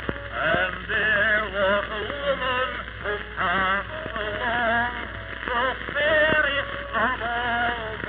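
Male voice singing with a wavering vibrato on an early acoustic phonograph recording from around 1900. The sound is thin and cut off in the highs, over steady surface noise with a few clicks.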